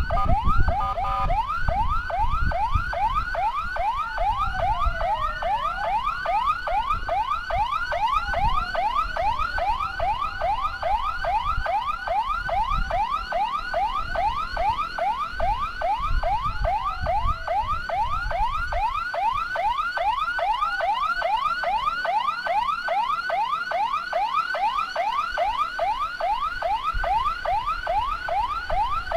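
Escort siren in a fast yelp, rising sweeps about three a second, with slower falling wails now and then, over steady vehicle and wind rumble.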